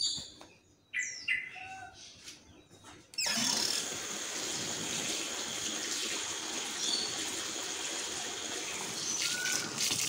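Tap water running from a hose into the wash tub of a twin-tub washing machine full of laundry. It starts suddenly about three seconds in and then runs steadily. A few short bird chirps come before it.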